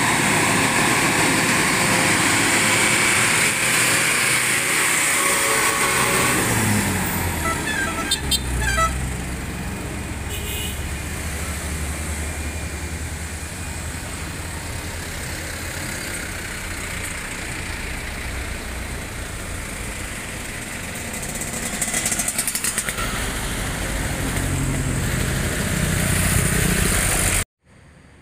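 Heavy diesel lorries climbing a hill with engines running loud, mixed with passing cars and motorcycles. About seven seconds in, one engine note falls and the traffic grows quieter, then swells again near the end.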